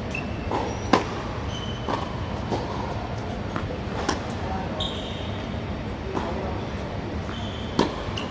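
Tennis rally on a hard court in a large covered hall: sharp racket-on-ball hits, the loudest a serve about a second in, then the near player's forehand about four seconds in and another shot near the end, with fainter hits from the far end in between. Short high squeaks of shoes on the court come several times, over a steady low hum of the hall.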